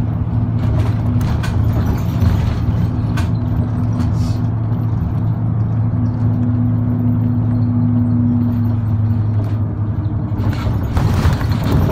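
Kanto Railway route bus running, heard from inside the passenger cabin: a steady low engine drone with a few light rattles. The noise swells near the end.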